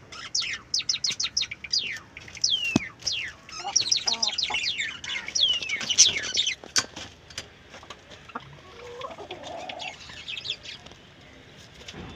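Country-chicken chicks peeping: many quick, high peeps that each fall in pitch, crowding together in the first half and thinning out later. A couple of sharp knocks sound among them.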